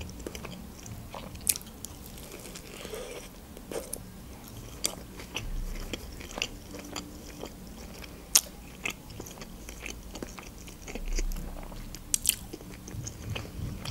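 A person chewing a juicy shawarma wrapped in flatbread: soft wet mouth sounds broken by scattered sharp clicks and smacks, a few of them louder.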